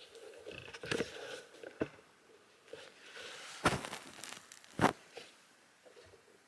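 Light handling noises: scattered taps, clicks and rustling, with two sharper clicks a little past halfway, as a small part and the camera are handled at a workbench.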